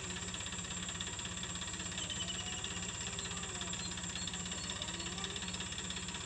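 Steady low mechanical drone with a fast even pulse, like a running engine, under a constant high-pitched tone and a few faint chirps.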